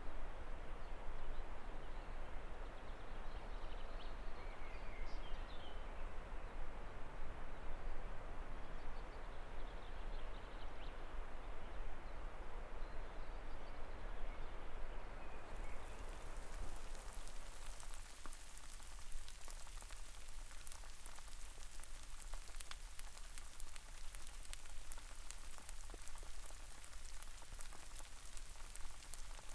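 A steady rushing noise with a few faint bird chirps a few seconds in. About halfway it changes abruptly to rain falling, with many fine drop ticks pattering on surfaces.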